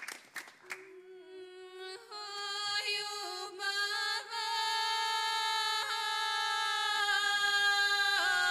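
Women singing a traditional Serbian harvest song (žetelačka pesma) a cappella, in long held notes with short breaks in the voice every second or two. A few clicks come first, the singing starts softly under a second in and grows louder about two seconds in.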